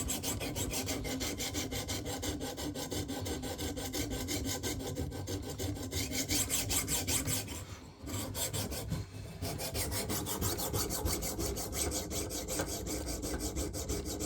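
Sharpening stone of a KME guided knife sharpener rasping back and forth along the edge of a flexible Bubba Blade 7-inch fillet knife in rapid strokes, with a brief pause about eight seconds in. The blade is being worked before a full burr is raised.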